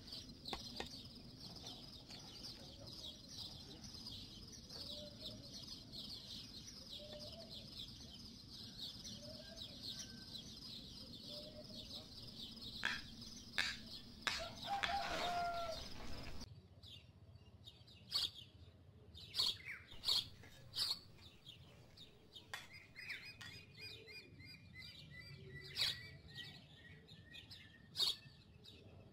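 Small birds chirping in a dense steady chorus with occasional chicken clucks. About halfway through the chorus stops abruptly, and scattered sharp knocks and scrapes of a trowel and bricks follow, with a short run of bird call notes.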